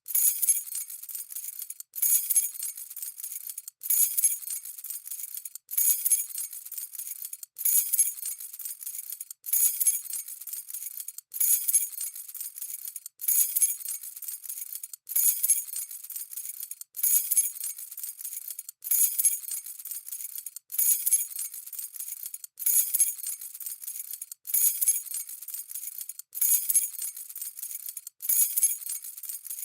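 A bunch of keys on a keyring jangling. The same short shake repeats about every two seconds, each starting with a louder jingle and cut off sharply before the next.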